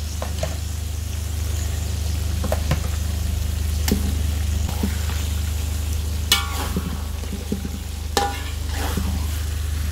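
Mrigal carp pieces sizzling in oily tomato-onion paste in a metal wok, with a steady low hum underneath. A spatula clinks and scrapes against the wok several times, and two strikes, about six and eight seconds in, ring briefly.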